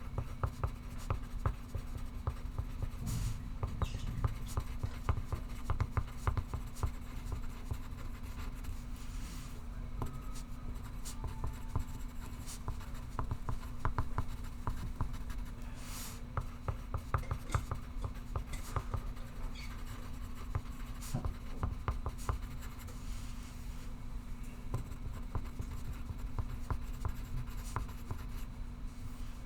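Pencil writing on paper: continuous fine scratching strokes, with a few louder scrapes, over a steady low hum.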